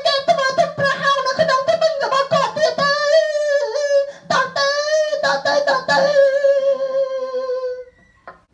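A high voice singing a short tune with quick notes and wavering held notes, ending on a long note that stops about eight seconds in.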